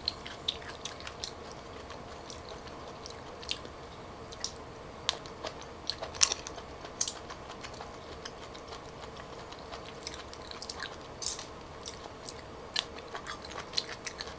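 Close-up chewing of hairy cockles, bitten carefully to feel for grit, with small sharp clicks of shell scattered through. A faint steady hum runs underneath.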